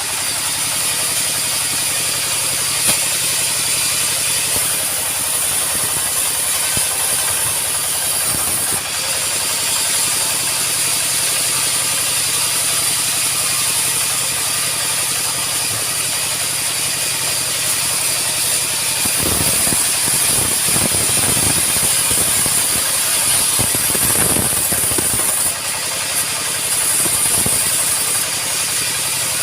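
Sawmill running steadily: a loud mechanical noise over a low hum, rougher for a few seconds about two-thirds of the way through.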